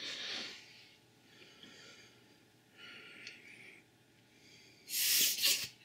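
Several soft puffs of breath, with a louder rushing puff near the end, blown at a disposable vape's airflow sensor to trigger it.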